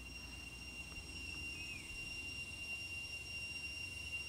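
Insects (crickets or cicadas) shrilling with a steady high tone, while a short falling chirp repeats about every three seconds over a low rumble.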